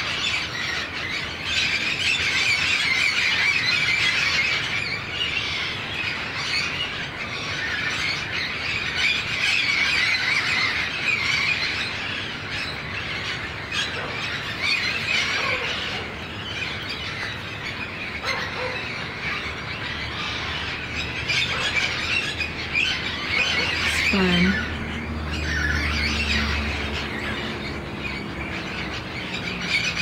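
A large flock of wild parrots screeching and squawking all at once, a loud, continuous high-pitched din.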